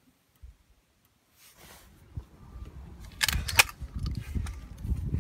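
Wind rumbling on the microphone, with a short cluster of sharp crackles about three seconds in.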